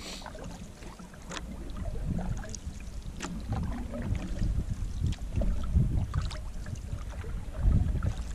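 Canoe being paddled on calm water: the paddle strokes swish through the water, with a few sharp ticks. Gusting wind rumbles on the microphone.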